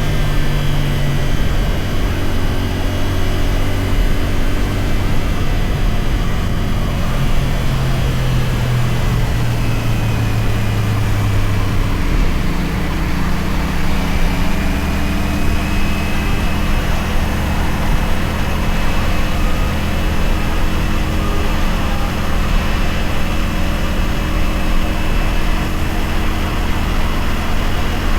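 Motorcycle engine of a CFMoto 450SR, a parallel twin, running steadily on the move under a haze of wind and road noise. The engine note changes about twelve seconds in and then holds steady again.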